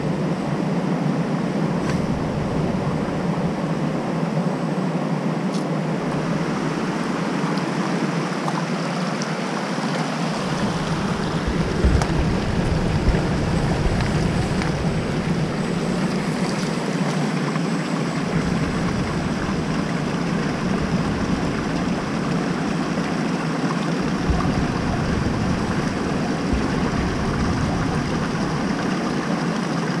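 Steady rush of creek water running over rocks, with a low rumble coming and going underneath. Two short knocks stand out about twelve seconds in.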